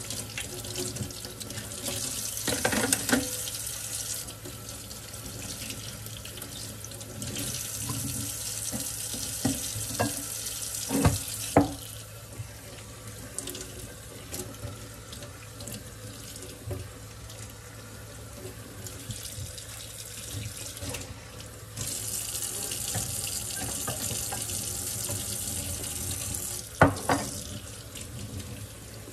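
Kitchen faucet running into a stainless steel sink as dishes are hand-washed and rinsed, the water hiss growing louder in several stretches as it splashes off the dishes. Several sharp clinks and knocks of dishes and utensils against the sink, the loudest about 11 seconds in and near the end.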